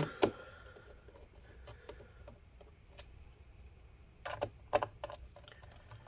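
Small clicks and ticks of a T6 Torx screwdriver driving the bottom-cover screws back into a laptop, with hands handling the panel; a short run of louder clicks comes about four seconds in.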